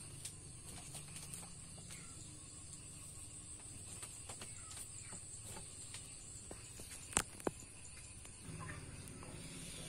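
Insects chirring steadily in a high-pitched drone, with two sharp clicks close together about seven seconds in.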